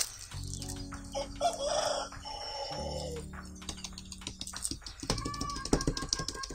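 Background music with a steady bass line. Between about one and two and a half seconds in, a short burst of a different, noisier sound lies over it.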